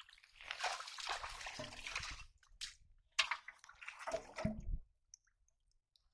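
Hands groping and sloshing through shallow muddy water, in two splashy spells about half a second in and again about three seconds in, then quiet near the end.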